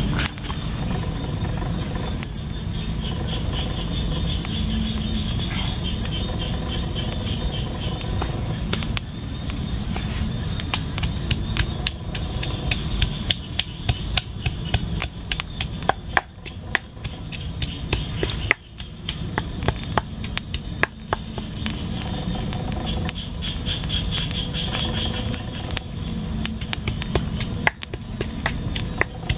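Stone pestle pounding in a stone mortar: irregular sharp knocks that come thick from about a third of the way in, over a steady low rumble.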